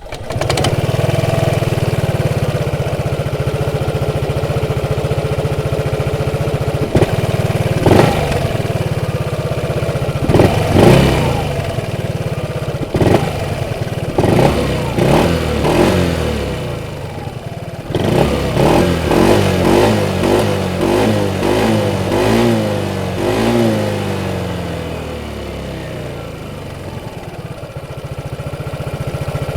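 Piaggio Medley S 125 scooter's single-cylinder four-stroke engine starting, then idling with a steady hum. Its throttle is blipped repeatedly in the middle, each rev rising and falling, before it settles back to idle near the end.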